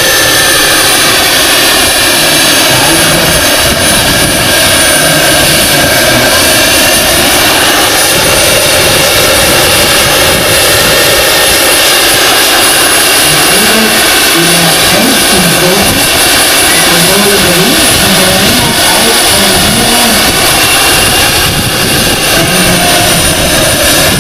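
Jakadofsky model turbine of a large-scale radio-controlled Lama SA 315B helicopter running at flight power: a loud, steady turbine whine. The pitch bends a little near the start and again near the end as the helicopter manoeuvres.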